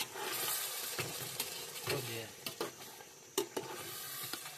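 Slotted metal ladle stirring chicken and potato pieces in a metal pot over a gas flame, the meat sizzling in the juices it has released after salting. Several sharp clicks come as the ladle knocks against the pot.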